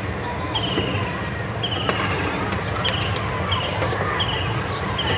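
Park playground ambience: children playing and calling in the background, with a short high chirp repeating about once a second.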